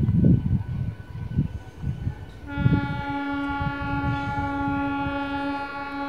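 Electric multiple unit local train's horn sounding one long, steady note, starting about two and a half seconds in, over an uneven low rumble.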